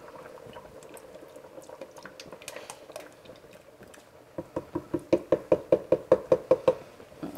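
Heavy whipping cream glugging out of a quart carton into a soup kettle: after a few seconds of faint bubbling from the heating pot, a quick even run of about a dozen glugs, some five a second.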